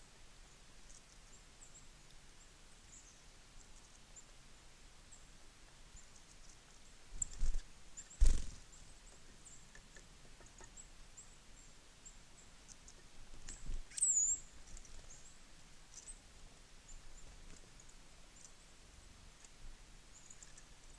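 Small birds at a feeder giving scattered faint, very high chips. Loud dull knocks come about seven and eight seconds in and again around fourteen seconds, with a short, brighter call just after the last knock.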